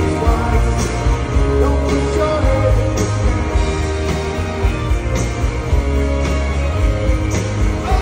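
Rock band playing live over a large venue's PA, heard from the crowd: electric guitars over steady bass and drums, with a cymbal or snare hit about once a second and singing in the mix.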